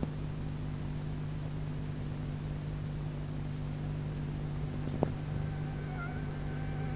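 Steady low hum and hiss of an old dubbed-on soundtrack, with a single click about five seconds in. A faint high-pitched tune, like whistling, starts near the end.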